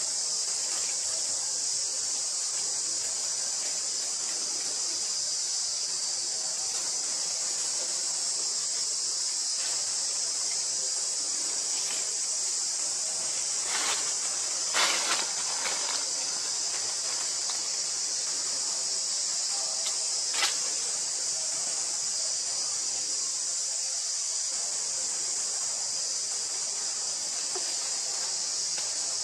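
Steady high-pitched chorus of insects buzzing without a break, with a few brief clicks about halfway through and once more a few seconds later.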